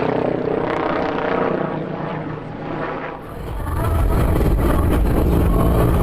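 Helicopter rotor and engine noise. About three seconds in, the sound cuts to a different recording with a heavier, steady low rumble.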